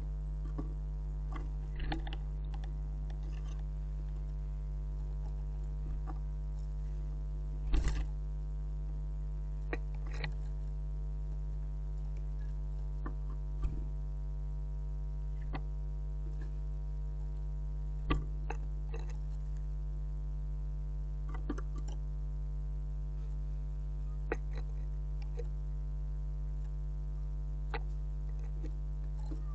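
Steady electrical mains hum made of many even tones, with scattered sharp taps and knocks from great tits and blue tits landing and pecking at a bird feeder. The loudest knock comes about eight seconds in.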